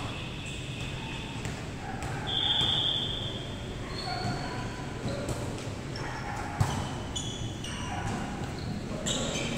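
Indoor volleyball play in a reverberant gym: a sharp smack of the ball being hit about two-thirds of the way in, and short high squeaks of sneakers on the wooden court, the longest about a quarter of the way in. Players' voices are faintly heard.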